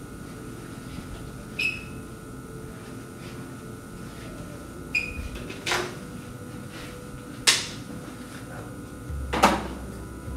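About five short, separate knocks and clicks, the two loudest in the second half, over a faint steady hum.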